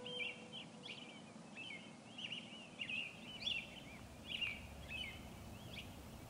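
Woodland birds chirping: many short rising and falling chirps, several a second, over a soft steady hiss. A held music note fades out in the first half second.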